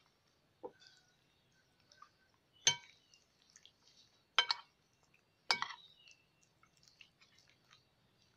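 Metal spoon clinking against a glass mixing bowl while stirring raw chicken pieces coated in cornflour and oyster sauce. There is a duller knock about a second in, then three sharp ringing clinks spaced a second or two apart, with faint scraping and taps between.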